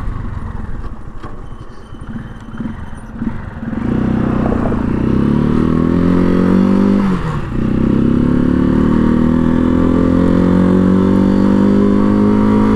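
Janus Phoenix 250's single-cylinder engine accelerating through the gears. It is quieter for the first few seconds, then its note climbs steadily from about four seconds in, drops briefly at an upshift about seven seconds in, and climbs again.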